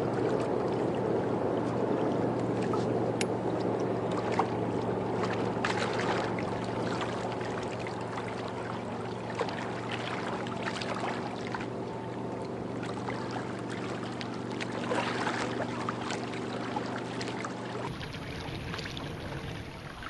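Small waves lapping and splashing against a stone riverbank, with a steady low hum underneath that stops near the end.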